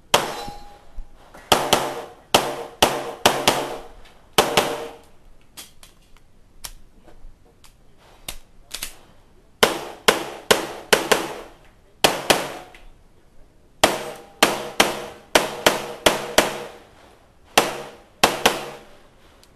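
Pistol shots fired in rapid pairs during a run through a practical shooting stage, about twenty in all, each sharp crack followed by a short ring. About five seconds in, the shooting stops for several seconds while the shooter moves to a new position, with only light clicks and rustling, then the pairs start again.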